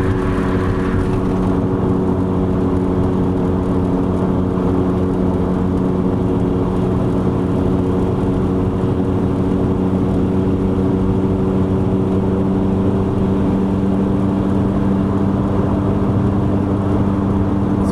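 Worn front wheel bearing on a 2001 Chevy Venture minivan, heard from inside the cabin at about 60 mph: a steady roar and hum over heavy tyre road noise, like knobby truck tyres, with no change in pitch or level.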